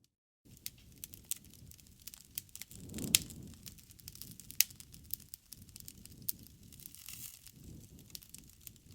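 Wood campfire crackling with many small sharp pops over a low rumble of flames, a loud pop about three seconds in and another about four and a half seconds in.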